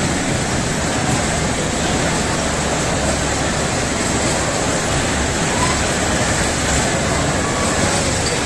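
Steady, even background din of an indoor play area, with no single distinct sound standing out.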